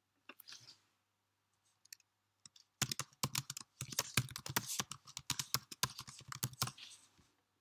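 Typing on a computer keyboard: a few scattered key clicks, then a quick, dense run of keystrokes from about three seconds in that stops shortly before the end.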